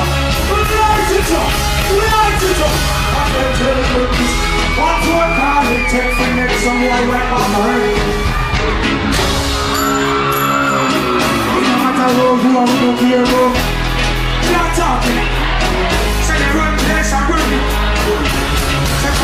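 Live dancehall music: a deejay's vocals and shouts over a heavy bass-driven riddim. The bass drops out for a few seconds about halfway through, then comes back in.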